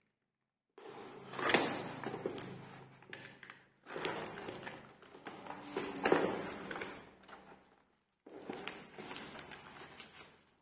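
Packaging being opened and handled: rustling and crinkling with scattered clicks and knocks, in three stretches that start and stop suddenly with short silences between.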